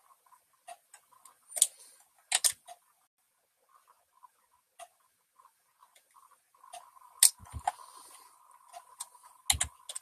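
Irregular sharp clicks and clunks from handling at a computer desk, with a close double click a couple of seconds in. Two dull thumps follow later, the second in a cluster of clicks near the end.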